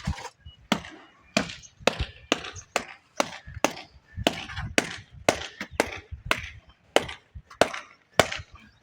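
Repeated sharp knocks of a hard tool striking tile or masonry, about two a second at a steady pace, each with a short ringing rattle.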